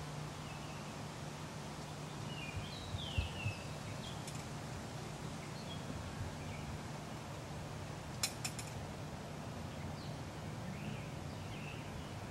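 Outdoor ambience with a steady low hum and faint chirps of small birds now and then. A couple of soft thumps come about three seconds in, and two sharp clicks follow a little past the middle.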